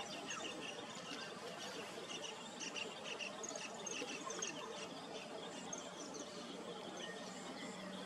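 Outdoor wildlife ambience: a dense background chorus of many short, rapid, high-pitched chirps from small birds and insects, running steadily.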